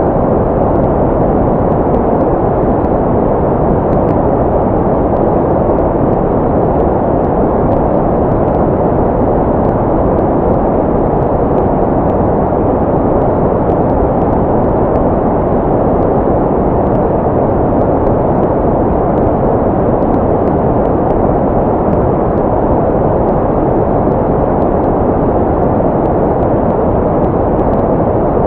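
Steady, unchanging white noise played as a baby sleep sound, muffled and low-pitched with little treble, like a constant rushing hiss. It is meant to imitate the sounds heard in the womb.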